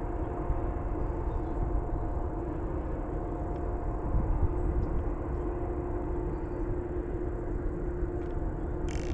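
A vehicle running at a steady pace: a continuous low rumble with a steady hum that neither rises nor falls, and a brief high hiss right at the end.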